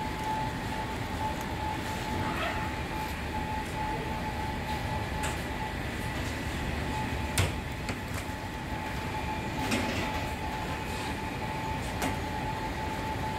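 Steady hum of bakery machinery with a constant whine. Over it come a few sharp knocks and clatters as baked buns are tipped off metal baking trays onto a perforated steel table, the loudest about halfway through.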